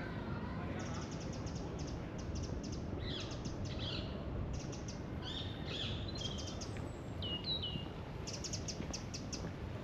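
Small birds chirping and calling in park trees: quick series of high chirps throughout, with a few short down-slurred whistles about seven to eight seconds in, over a steady low outdoor background hum.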